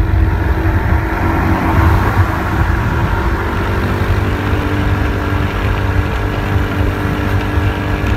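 Honda Win motorbike engine running steadily at cruising speed while riding, with wind and road noise rushing over the microphone.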